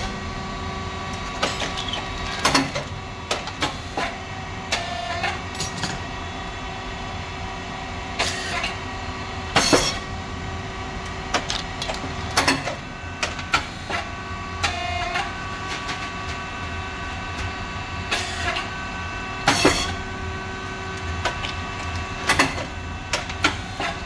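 SYP4506 rice cake popping machine running through its cycle. A steady hum of its motor, hydraulic pump and fan is broken by a loud sharp pop about every ten seconds as the heated titanium-coated moulds open and puff the rice mix into thin chips. Lighter clicks and clunks come from the moulds and feeding plate in between.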